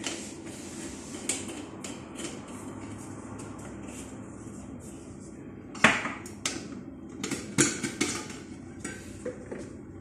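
Spice jars, lids and a spoon clicking and knocking against a glass bowl and the stone countertop while seasoning is added, over a steady low background hum. A sharp knock comes about six seconds in, followed by a quick run of clinks.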